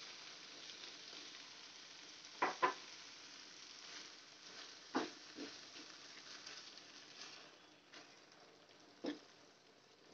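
Soya mince sizzling in a non-stick frying pan as a splash of water hits it, the hiss slowly dying away. A spatula knocks against the pan a few times while stirring: a quick double knock about two and a half seconds in, then single knocks around five and nine seconds.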